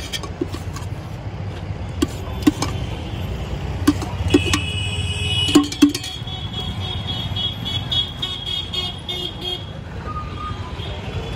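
Steady road-traffic rumble with a high, steady vehicle horn sounding for about five seconds from around four seconds in, and a few sharp metallic clinks of a steel spoon against a steel mixing tin in the first six seconds.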